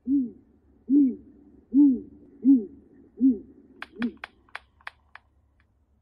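Great grey owl hooting: a series of six low, evenly spaced hoots, each rising and falling slightly in pitch, the last one weaker. About four seconds in, a quick run of sharp clicks.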